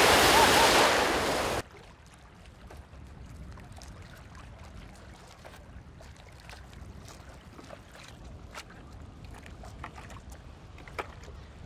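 Small surf waves breaking in shallow water, with wind buffeting the microphone; the sound cuts off abruptly about a second and a half in. After that there is only faint lapping sea water with scattered small splashes and ticks.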